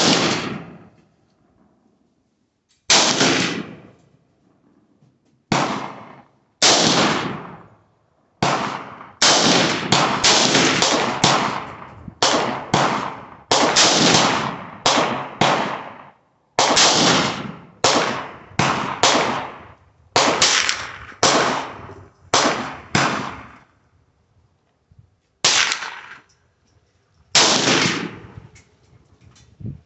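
A .223 AR-15-style rifle fired semi-automatically: about two dozen sharp shots at an uneven pace, bunched in quick strings roughly half a second apart through the middle. Each shot rings on briefly with echo.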